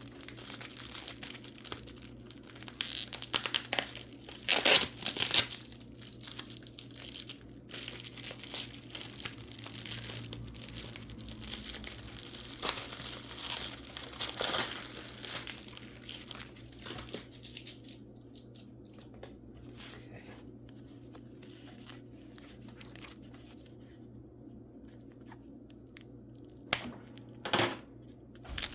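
Packing material being torn and crumpled by hand as a wrapped mineral specimen is unwrapped, in irregular rustling bursts. A quieter stretch comes past the middle, then two short bursts near the end.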